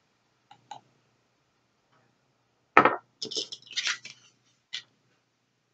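A few faint clicks from handling a small glass nail polish bottle, then one sharp knock as the bottle is set down on a hard stone countertop. After the knock comes about a second of scraping and rustling as the cardboard card of bobby pins is handled, and one more click near the end.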